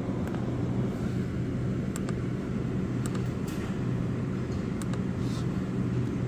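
Steady low hum of the Holden Commodore VZ's 3.6 L V6 idling, with a few faint light ticks over it.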